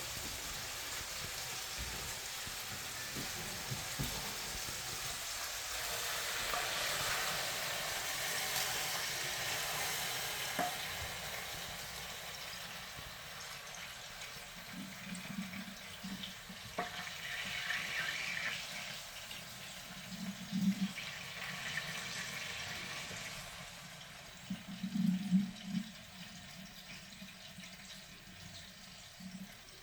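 Marinated bulgogi meat in a hot wok sizzling while its cooking liquid is drained off, a steady hiss of frying and running liquid that fades gradually after about ten seconds, with a few brief louder splashes later on.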